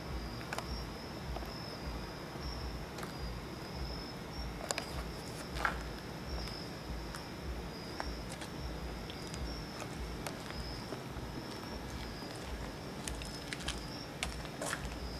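Night insects chirping in a steady high trill, over a low throb that pulses about twice a second, with scattered small clicks and taps.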